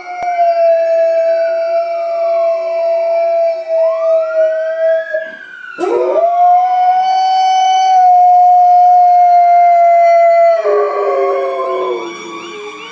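A husky-type dog howling in long, held notes along with the rising and falling wail of passing fire engine sirens.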